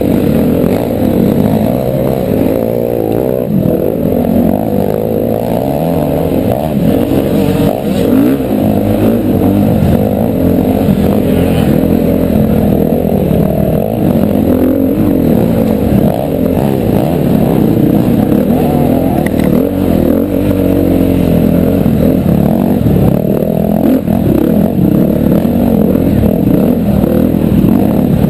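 KTM 350 XC-F single-cylinder four-stroke dirt bike engine revving up and down constantly as it is ridden hard offroad, heard from a helmet-mounted camera, dull and muffled.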